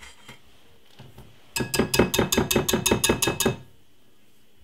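Wire whisk beating cake batter in a glass bowl, its wires clinking rapidly against the glass, about eight strokes a second for roughly two seconds from about a second and a half in.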